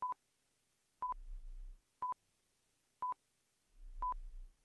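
Electronic countdown-timer beeps: five short, identical high beeps, one a second, counting down the seconds before the quiz answer is revealed.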